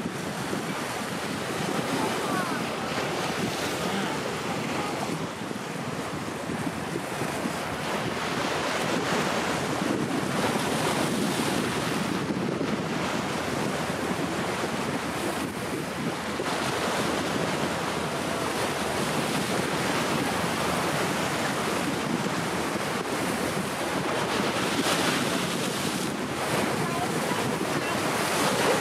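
Steady wind buffeting the microphone over the wash of choppy sea water, an even rushing noise with no distinct events.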